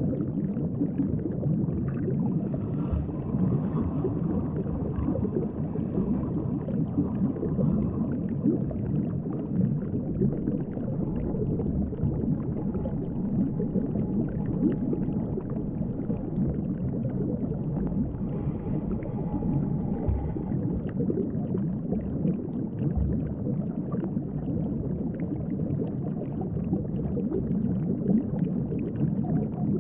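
Underwater sound picked up by a submerged action camera: a steady, muffled low rumble and gurgle of moving water.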